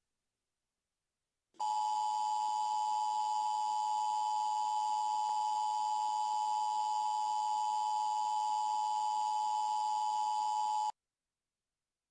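Steady electronic attention tone of an emergency broadcast: one unbroken pitch that starts about a second and a half in and cuts off abruptly some nine seconds later.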